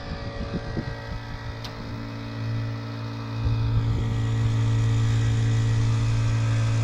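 An engine running steadily with a low, even hum that gets louder about three and a half seconds in; a single sharp click is heard early on.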